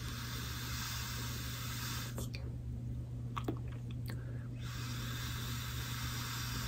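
Pod vape being drawn on with its airflow closed almost shut: a steady airy hiss of tight-draw inhaling with coil crackle for about two seconds, a pause with a few small clicks, then a second long draw from about four and a half seconds in. A low steady hum runs underneath.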